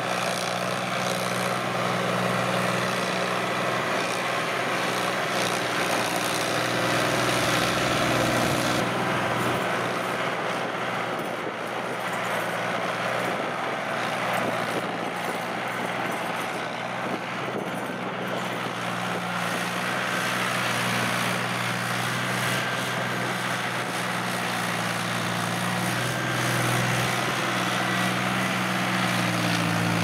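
Diesel farm tractor engines running steadily under load while rotary tillers work the soil. The sound shifts at each cut between tractors.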